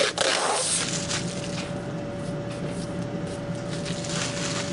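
Protective plastic film being peeled off a clear acrylic disc, a steady crackling, tearing rustle.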